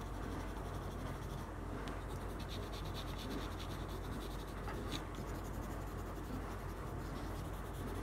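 Faint scratching and rubbing on watercolor paper as a watercolor colored pencil and a fingertip work color into a painting, with a few light strokes and taps, over a low steady hum.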